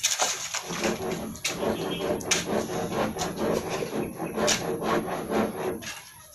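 Continuous rough scraping and rubbing from a hand tool worked against a hard, gritty surface, made of many quick overlapping strokes.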